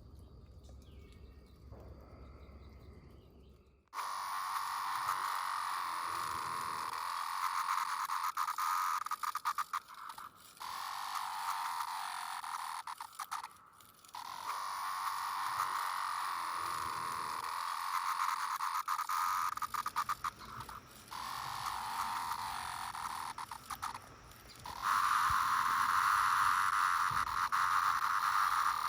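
Brood X periodical cicadas in chorus: a dense, steady droning centred on a mid-high pitch. It starts abruptly about four seconds in after a quieter opening, comes in several stretches of differing loudness, and is loudest near the end.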